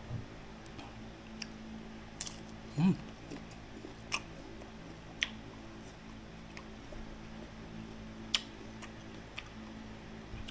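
Chewing and crunching on slices of unripe green mango, with a handful of short, sharp crunchy clicks scattered through, over a steady low hum.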